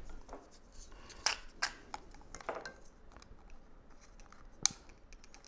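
Metal marinade injector clicking and scraping against a small glass bowl as it is filled with melted butter: several light, separate clicks, the sharpest near the end.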